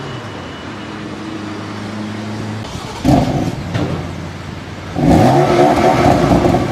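BMW M3 F80 twin-turbo straight-six idling steadily, then blipped once about three seconds in. A second rev rises at about five seconds and is held high with a wavering pitch.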